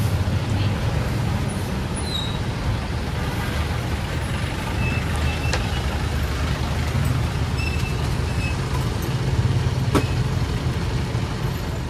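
Street traffic: a steady low engine rumble, with a truck close by, and two sharp clicks, one about halfway through and one near the end.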